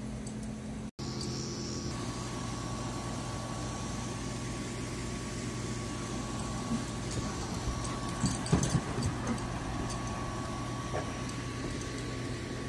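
A steady low machine hum with a few light clicks and taps about eight to nine seconds in.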